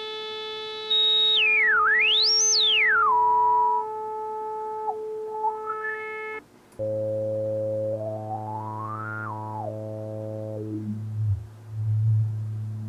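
Sequential Circuits Prophet-5 Rev 2 analog synthesizer holding a note while the filter cutoff is swept with the resonance turned up high. A whistling resonant peak glides up and down over the tone twice. About halfway through, the note stops and a lower note starts, with one slower sweep of the resonant peak up and back down.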